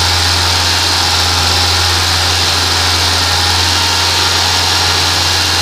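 Renault Mégane 1.6-litre 16-valve petrol engine idling steadily, held at a raised cold idle on the choke until it warms up.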